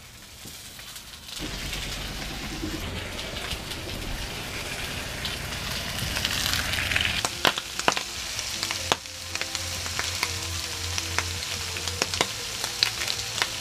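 Bacon and sausages sizzling in a frying pan on a gas stove. The sizzle starts about a second in as the meat goes into the hot pan, with sharp pops and clicks through the second half.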